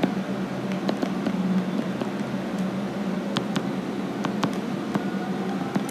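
Stylus writing on a tablet's glass screen: a few light ticks over a steady background hum.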